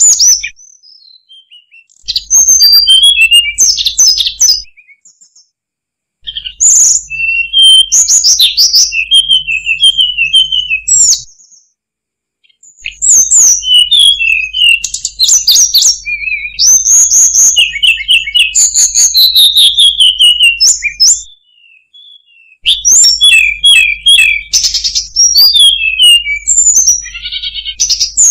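Hill blue flycatcher singing: bouts of fast, varied, high whistled notes lasting several seconds each, broken by short silent pauses of a second or two.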